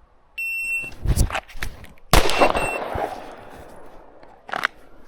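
A shot timer's start beep, then a few quick clicks and knocks as a pistol is drawn, and about two seconds in a single loud pistol shot that echoes for about a second. A shorter sharp crack comes near the end.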